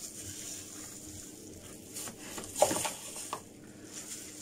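A plastic-gloved hand rubbing and squishing a creamy treatment through wet hair, heard as a few short rustles, the loudest about two and a half seconds in.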